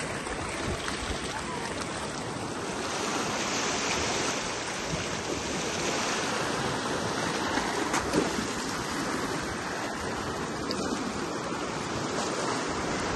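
Surf washing and foaming over seaweed-covered shore rocks: a steady rush of moving sea water that grows a little louder a few seconds in.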